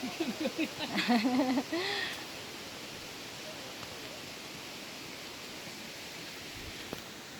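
Steady rushing of a creek flowing, with a person's voice briefly over it in the first two seconds.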